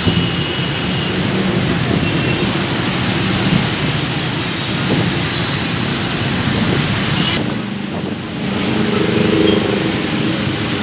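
Dense street traffic of motorbikes and cars, a steady wash of engine and tyre noise.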